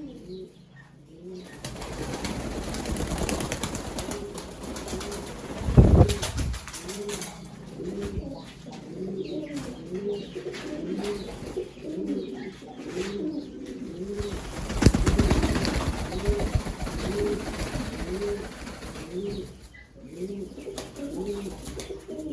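Bokhara pigeons cooing over and over in a steady run of low, rolling coos. Two loud rushing bursts come through, one about a quarter of the way in and a longer one past halfway.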